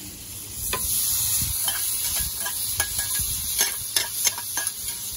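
Mushrooms and their butter and soy-sauce juices sizzling as they are tipped into a hot carbon steel skillet of cubed ribeye over charcoal. The sizzle swells about half a second in, with scattered sharp clicks against the pan.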